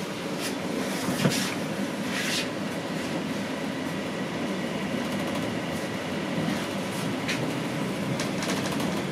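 Inside a Toronto Rocket subway car on TTC Line 1, the train running along the track: a steady rumble of wheels and running gear, with a few short hisses in the first couple of seconds.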